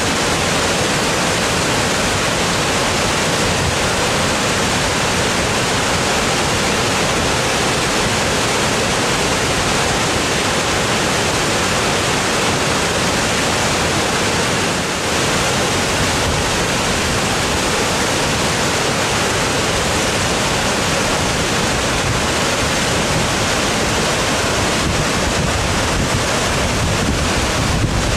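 Pyramid Creek's granite cascade and waterfall rushing close by: a loud, steady roar of white water.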